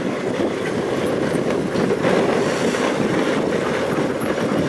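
Dog sled moving over groomed snow behind a husky team: a steady rushing scrape from the runners on the snow.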